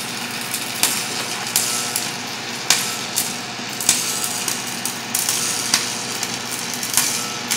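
Stick welding arc burning a 7018 rod: a steady crackling hiss with a sharp crack every second or so.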